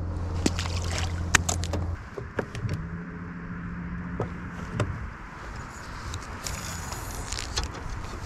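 Electric trolling motor humming steadily, cutting off suddenly about two seconds in and running again briefly a little later. Scattered clicks and rattles of a spinning reel and rod as a lure is cast and reeled in.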